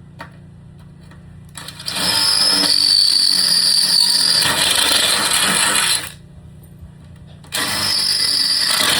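A small electric motor running in two bursts, the first about four seconds long and the second starting about a second and a half after it stops.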